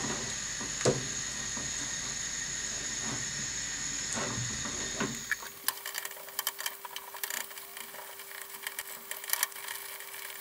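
Silicone spatula stirring and scraping a thickening peanut butter and maple syrup mixture in a non-stick saucepan on a gas hob. For about the first half a steady hiss runs under a few scrapes; then the hiss drops away abruptly and quick, irregular clicks and scrapes of the stirring fill the rest.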